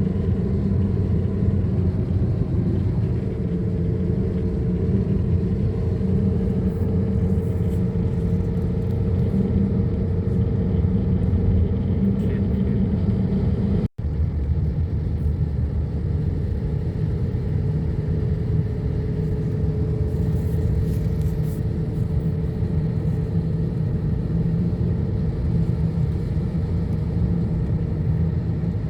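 Motor vehicle running at a steady speed: a continuous low engine and road drone with a faint tone that drifts slightly in pitch. It cuts out for an instant about halfway through.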